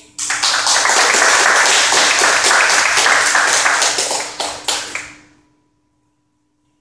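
A small group applauding, starting suddenly and dying away after about five seconds.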